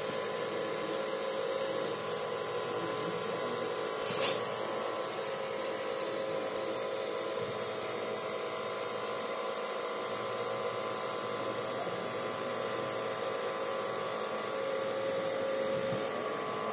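Small 9-volt DC motors of a model dust remover running steadily with a whine, spinning a homemade copper-plate fan. One short sharp click about four seconds in.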